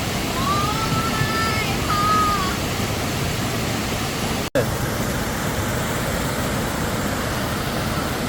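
Waterfall: a steady rush of falling water. A short high-pitched call sounds over it in the first two or three seconds, and the sound drops out for an instant about halfway through.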